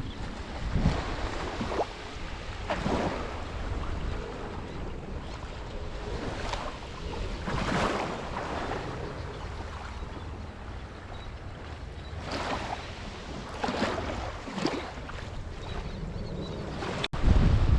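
Small Gulf of Mexico waves breaking and washing up the beach in repeated surges every second or two, with wind rumbling on the microphone. Near the end a brief break in the sound, after which the wind rumble is louder.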